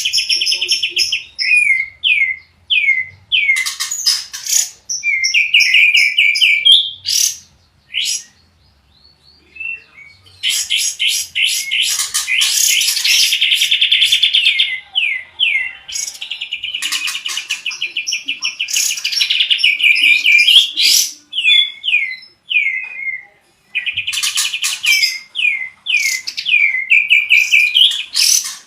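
Songbirds singing, a canary among them: dense, very fast rolling trills alternate with series of quick down-slurred whistled notes. There is a short lull about eight to ten seconds in.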